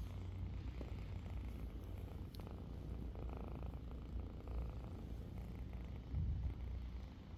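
Kitten purring close to the microphone: a steady low rumble.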